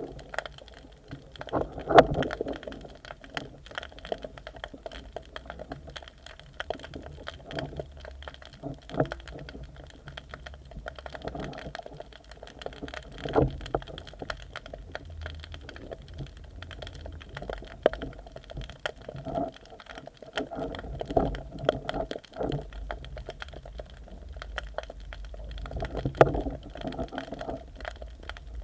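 Muffled underwater sound picked up by a submerged camera: a steady low rumble of moving water with scattered sharp clicks and a few louder dull knocks.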